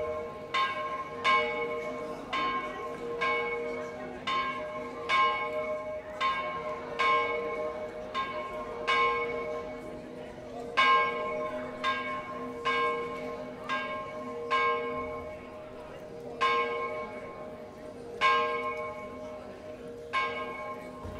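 Church tower bells ringing the midday peal: several bells of different pitches struck over and over, about one to two strokes a second, each stroke ringing on and overlapping the next.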